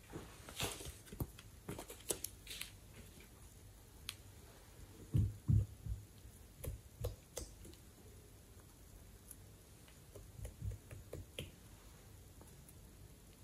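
Quiet handling sounds of a makeup brush dabbing eyeshadow onto slime and dipping into an eyeshadow palette: scattered soft clicks and taps, with two dull knocks about five seconds in and a few fainter ones later.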